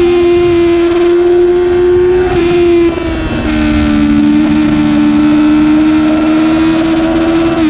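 Yamaha R6 inline-four engine running at high revs in third gear on track, with wind noise. The note holds steady, drops a step about three seconds in with a brief dip in loudness, then holds steady again.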